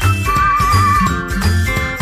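Upbeat instrumental background music: a steady bass beat under a bright, bell-like melody with a wavering high note.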